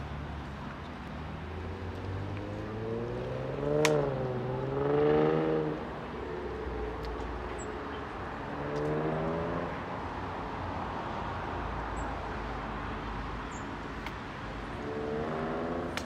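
Road traffic: cars driving by, their engines rising and falling in pitch as they pass, over a steady low rumble. A sharp click about four seconds in.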